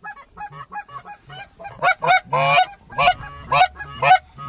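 Goose honks and clucks in a quick string of short calls, weaker at first and louder from about two seconds in, then coming about twice a second.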